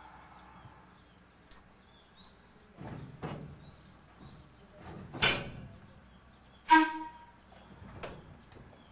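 Choshi Electric Railway car 1002 standing at a platform: a few separate sudden clanks and air releases of a kind typical of its doors, over a low hum. The loudest comes about seven seconds in, with a short ringing tone.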